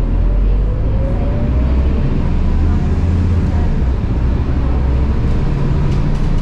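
Scania K230UB city bus under way, heard from inside the cabin: its 9.3-litre five-cylinder Scania DC9 diesel and ZF Ecomat six-speed automatic drivetrain give a steady low drone, with a faint whine rising in pitch over the first second or two.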